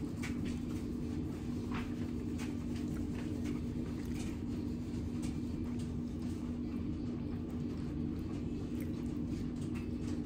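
Steady low hum, with faint scattered clicks and smacks of food being picked up with the fingers and chewed.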